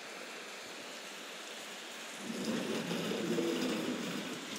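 Steady rain falling, an even hiss. From about two seconds in, a louder, lower noise joins it.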